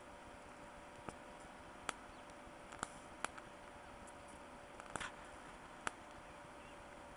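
High-voltage arc drawn from a wire by a flyback transformer driver: a steady hiss with a faint hum, broken by sharp snaps at irregular intervals, about six of them.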